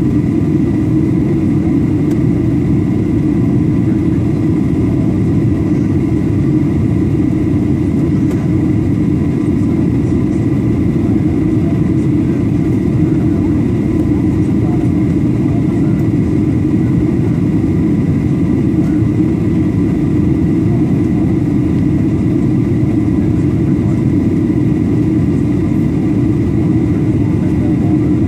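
Aircraft engine drone: a steady low rumble with a faint steady whine over it, unchanging throughout.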